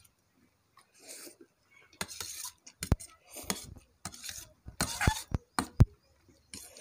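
Cutlery clinking and scraping against dishes during a fast noodle meal: a handful of sharp clinks between about three and six seconds in, the loudest near the end.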